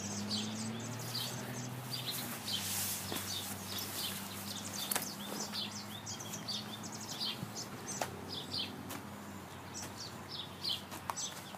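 Small birds chirping and singing in short repeated calls, over an even outdoor hiss and a faint low steady hum that fades out near the end. A few faint clicks are scattered through it.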